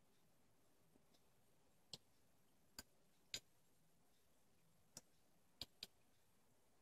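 A miniature metal fork clinking against a tiny china plate: six short, light clicks, three from about two to three and a half seconds in and three more in the last two seconds.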